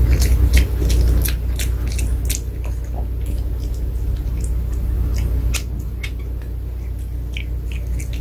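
Pomeranian chewing and biting a hard probiotic stick treat: irregular crisp crunches and clicks, thicker in the first half, over a steady low hum.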